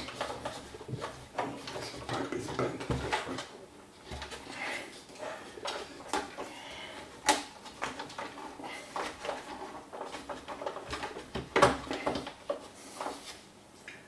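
Hard plastic coffee-maker housing and its internal parts handled and fitted together: irregular clicks, taps and rubbing, with sharper knocks about seven and eleven and a half seconds in.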